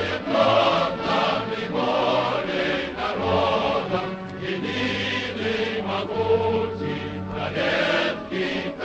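Choral music: a choir singing a sustained chant-like song over instrumental accompaniment.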